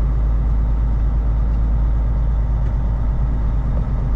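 Kenworth T880's Cummins 565 hp diesel engine running with a steady low drone.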